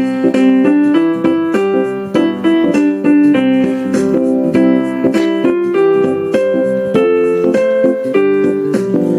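Casio LK-280 electronic keyboard playing a tune in a piano-like tone over accompanying chords, with a new note several times a second.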